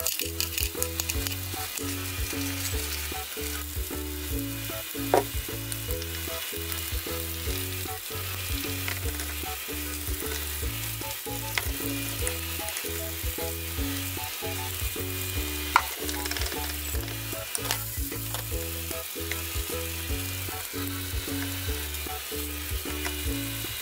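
Green beans sizzling steadily as they stir-fry in a frying pan, with two sharp clicks of a utensil, about five seconds in and again near sixteen seconds. Soft background music runs underneath.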